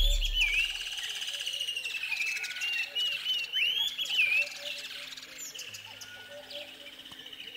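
Birdsong: repeated clear whistled calls that arch up and down, with chirps, over soft held low tones of ambient music. A deep boom fades out in the first second.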